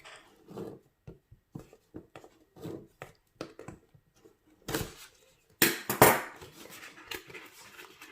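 The Logitech MX Master 3's retail box and packaging being opened and handled by hand: scattered scrapes, rustles and small knocks, with a cluster of sharper, louder snaps and rips about five to six seconds in.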